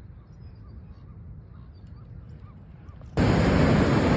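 Faint, repeated bird calls over quiet outdoor background, then about three seconds in the sound jumps abruptly to a loud, steady rush of surf and wind.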